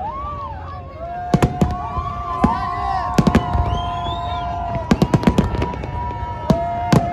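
Fireworks going off in quick clusters of sharp bangs and crackles over a steady low rumble, with long held whistling tones sounding over them.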